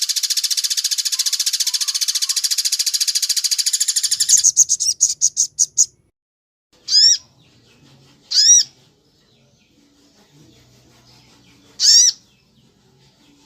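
Bird song: a very fast, dense trill that slows into separate pulses and stops near the middle, then three single arched call notes spaced a second or more apart.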